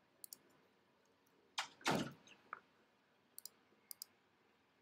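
Computer mouse clicking faintly: a quick pair of clicks just after the start, then two more pairs about three and a half and four seconds in. A short rushing noise about two seconds in is louder than the clicks.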